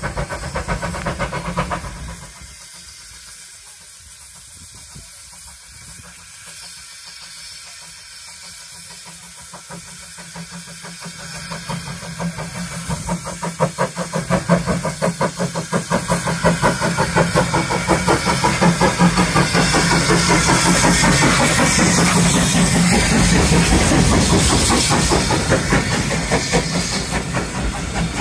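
Steam locomotive arriving with a train of coaches: the sound builds from about ten seconds in to a rapid regular beat with steam hiss, loudest as it passes, and the coaches roll by near the end.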